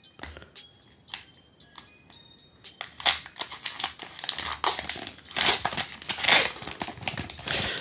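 Foil wrapper of a Pokémon trading-card booster pack being torn open and crinkled by hand: a run of crackling rips from about three seconds in, over quiet background music.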